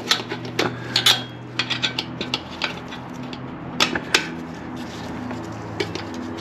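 Metal tools and parts clinking and clicking as they are handled, with a quick run of sharp clicks in the first second and two more about four seconds in, over a steady low hum.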